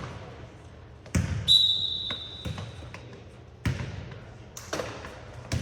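A basketball bouncing on a gym floor in uneven, separate thumps, with a short high squeal about a second and a half in.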